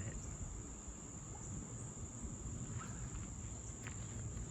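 Crickets trilling, a steady high-pitched drone.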